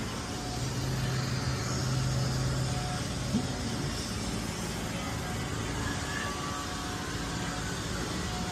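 An engine runs steadily with a low hum that swells for the first few seconds and then eases back. There is one short knock about three and a half seconds in.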